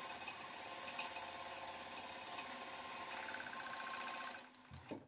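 Industrial overlock (serger) sewing machine running at a steady speed as it stitches along the fabric edge, then winding down and stopping about four and a half seconds in, followed by a short knock.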